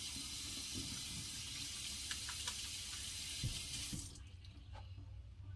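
Tap running water into a sink, a steady rush that is turned off about four seconds in, with a few light knocks while it runs.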